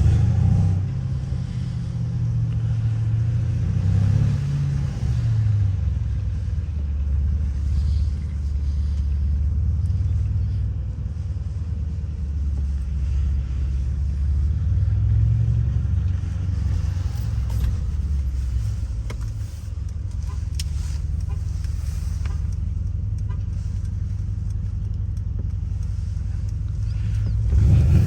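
Stage 2 tuned Mercedes-AMG C63 V8 engine running at low, fairly steady revs while driving, a deep rumble whose pitch rises and falls gently, swelling louder near the end.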